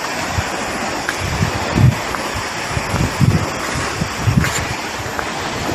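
Steady rush of flowing river water, with a few low gusts of wind buffeting the microphone.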